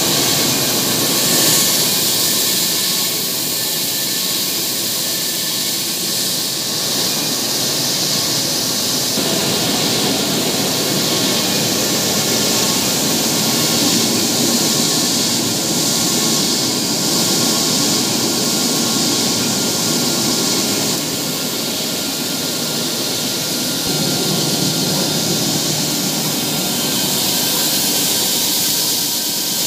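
Tea-processing machinery running: a loud, steady mechanical noise with a strong hiss over it.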